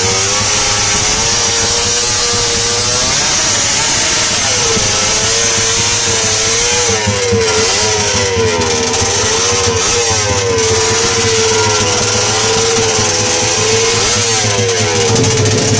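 Tuned drag-racing motorcycle engine held at high revs, loud, its pitch wavering up and down again and again as the throttle is worked while the bike waits to launch.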